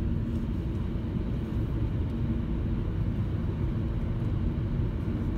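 Steady road and engine noise of a moving car, heard inside the cabin.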